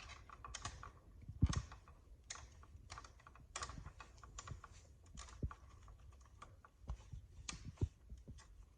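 Bare copper ground wires being handled and twisted together with a green wire nut: a run of irregular small clicks and scrapes, with one louder knock about a second and a half in.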